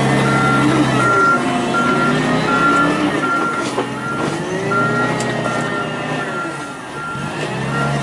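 Forklift backing up: its reversing alarm beeps steadily about twice a second over the propane forklift engine, which rises and falls in pitch as the driver works the throttle.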